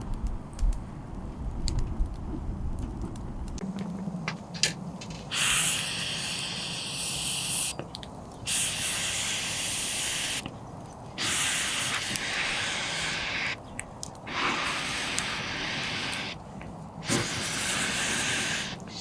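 A few sharp clicks, then five bursts of steady hissing, each about two seconds long, starting and stopping abruptly with short pauses between.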